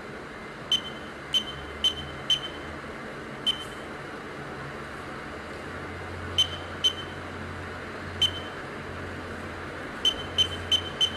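Electronic alarm clock's piezo beeper giving short, high-pitched single beeps at uneven intervals, about a dozen in all, ending with four in quick succession.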